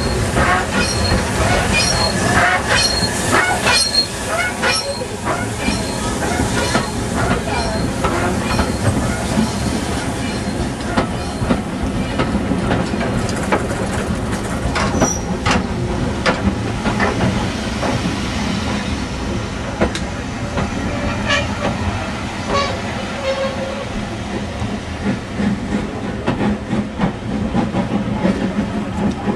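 A steam-hauled passenger train rolling slowly past close by. The locomotive goes by first with a hiss of steam, then the coaches follow, their wheels rumbling and clicking over the rail joints.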